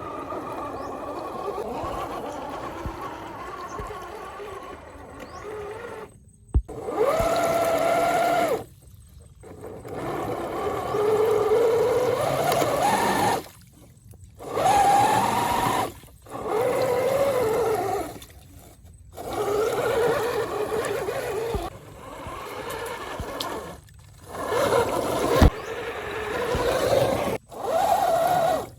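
Electric motor of an RC Defender 4x4 crawler whining in repeated throttle bursts, the pitch rising and falling with each burst and stopping in short gaps between them. There are a couple of sharp knocks, the loudest near the end.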